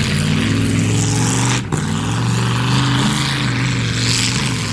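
Demolition derby car engines running hard in a steady loud drone. The sound breaks off for an instant about a second and a half in.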